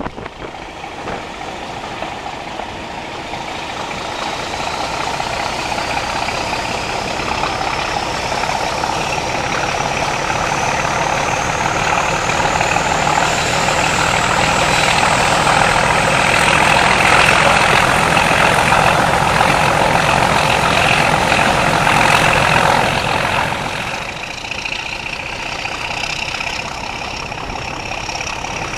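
Class 31 diesel locomotive working hard under power, heard from a coach window behind it: a steady heavy engine thrash with a whine climbing in pitch, growing louder, then easing back somewhat about 23 seconds in.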